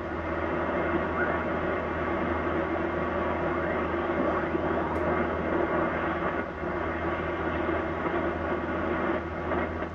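Receiver audio from a Yaesu FTdx1200 HF transceiver in lower sideband: a steady hiss of 80-metre band noise as the main dial is turned slowly up the band. Faint signals slide past as short gliding tones.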